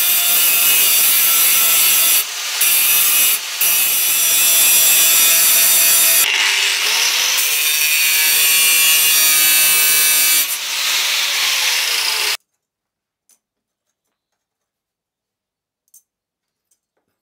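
Angle grinder cutting into a pattern-welded (Damascus) steel bar clamped in a vise: a loud, steady whine with two brief dips as the disc eases off. It stops abruptly about twelve seconds in, leaving near silence with a few faint clicks.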